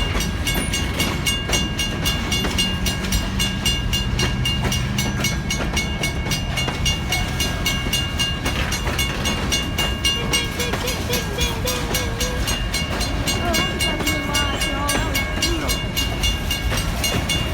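Grain train's freight cars rolling past with a steady low rumble, while the grade crossing bell rings rapidly and without pause.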